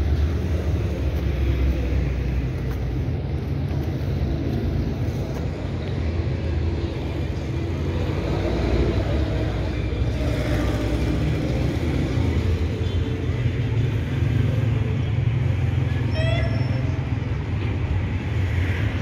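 Street traffic: cars running along a city road, a steady low rumble, with a short run of high rising chirps near the end.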